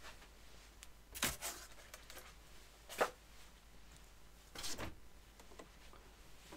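Desk being cleared by hand: a foam packing tray and plastic computer units are lifted and set aside, making three short knocks and scrapes, the sharpest about three seconds in, over quiet room tone.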